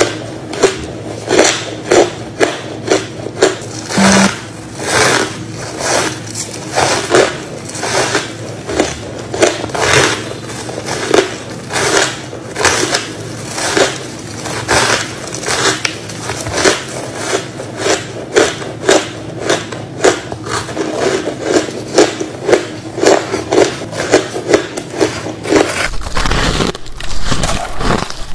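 Close-miked biting and chewing of packed freezer-frost ice: a steady run of hard crunches, about two a second.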